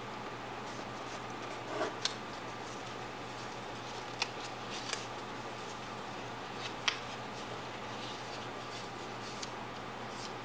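Paper being folded and creased by hand: a few short crinkles and clicks, spaced irregularly, over a steady faint hum and hiss.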